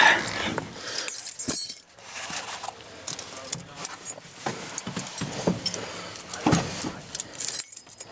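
A bunch of keys jangling and clicking, with rustling handling noise.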